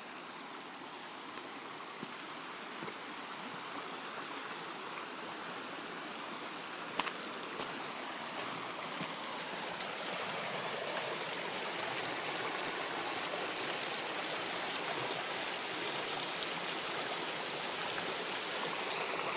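Small rocky creek rushing and splashing steadily, growing slowly louder, with a few brief sharp knocks or splashes, the loudest about seven seconds in.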